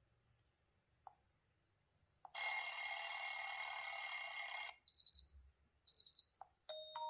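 Xiaomi 11 Ultra ringtones playing through the phone's speaker. After two faint clicks, a bell-like telephone ring sounds for about two seconds and stops abruptly, then come two short high beeps. Near the end the next ringtone begins with chiming, mallet-like notes.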